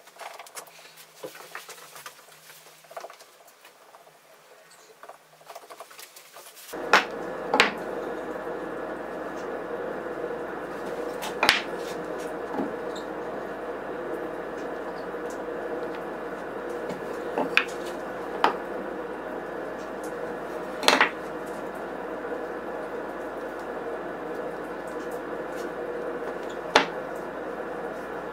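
Pine wood strips knocked together and set down on a board as they are arranged, giving a handful of sharp wooden clacks. About seven seconds in, a steady hum starts underneath and continues.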